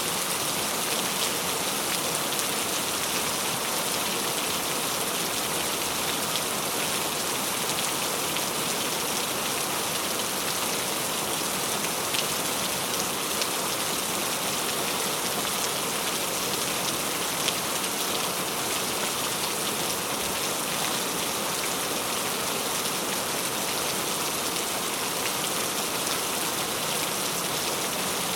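Heavy rain pouring steadily onto surfaces, a dense even hiss with many fine drop ticks.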